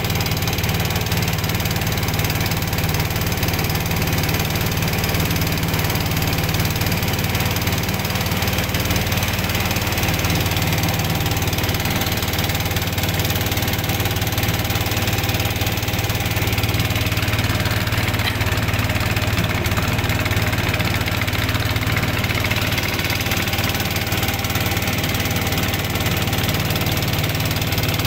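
Small wooden boat's engine running steadily underway, a constant low drone with no break.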